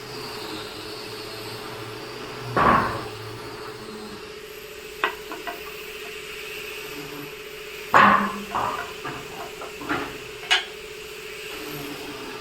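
A few sharp knocks and taps on wood, two of them loud and the rest lighter, over the steady hum of a running woodworking machine.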